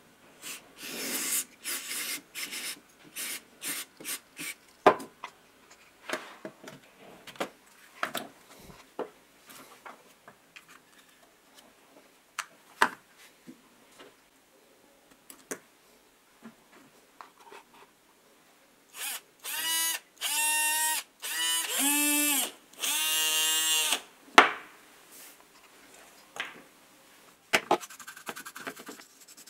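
Bench work on a small cordless driver's motor parts: hissing sprays of contact cleaner near the start, clicks and knocks of plastic and metal parts being handled, then several short whirring bursts that rise in pitch, from the small DC motor being spun. A bristle brush scrubs the plastic housing near the end.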